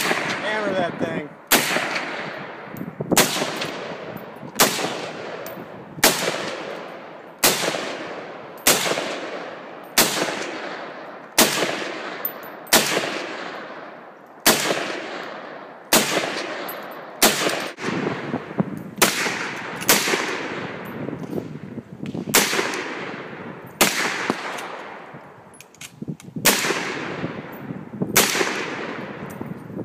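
G3 battle rifle in 7.62×51 mm fired semi-automatic, a steady string of about twenty single shots roughly one every second and a half. Each shot is followed by a long echo.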